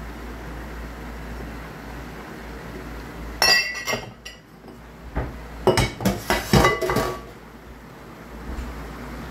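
Kitchenware clinking against a metal cooking pan: one sharp ringing clink about three and a half seconds in, then a quick cluster of clinks and rattles around six to seven seconds, over a steady low hiss.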